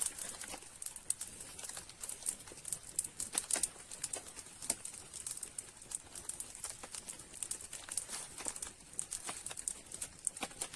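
Irregular sharp crackles and clicks, several a second and uneven in strength, over a faint steady hiss.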